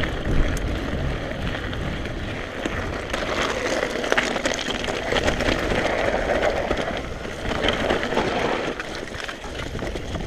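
Mountain bike being ridden over rough dirt trail: steady tyre noise with frequent rattling clicks from the bike, and wind buffeting the microphone.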